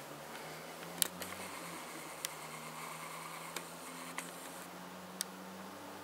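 A Cavalier King Charles Spaniel sleeping on its back and snoring softly: a low steady drone under a faint breathy hiss. Five sharp clicks come at irregular intervals of about a second.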